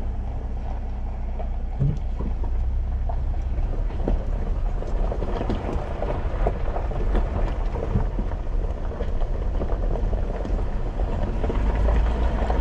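Jeep driving on a dirt forest road, heard from inside: a steady low road rumble with constant small rattles and knocks from the rough surface.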